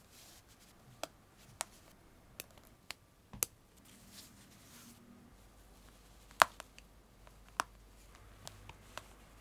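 Metal press-stud snaps on a 1/3-scale doll's cotton blouse clicking as they are pressed shut: about nine sharp, single clicks at irregular intervals, the loudest about six and a half seconds in.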